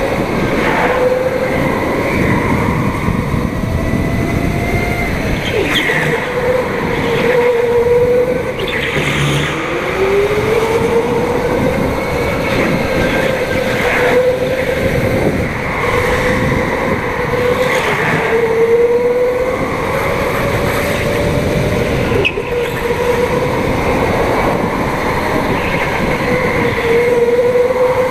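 Go-kart engine running hard under the seat, its pitch dipping in the corners and climbing again on the straights, with the deepest drop and climb about nine seconds in. A few brief knocks are heard along the way.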